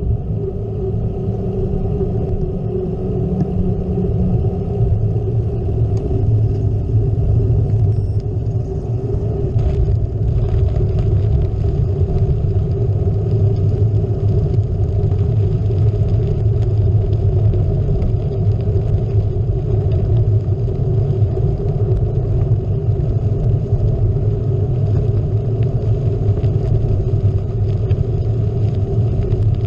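Steady low rumble of a gravel bike rolling along, picked up by a bike-mounted GoPro: tyre and wind noise.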